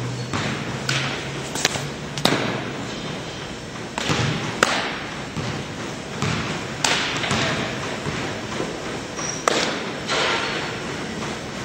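Softball pitching practice: a series of sharp thuds and pops as the ball hits leather gloves, on the pitch into the catcher's mitt and on the throw back. The knocks echo in a large hall.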